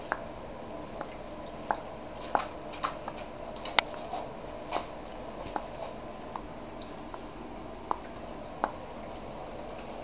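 A seven-week-old Cavalier King Charles Spaniel puppy chewing and biting at a shoe, with irregular small clicks and snaps.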